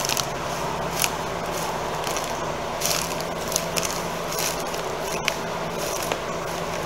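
Work boots trampling dry straw and dead grass down inside a wire compost ring: short crunching rustles, about one a second, at uneven intervals. Under them runs the steady hum of a greenhouse exhaust fan.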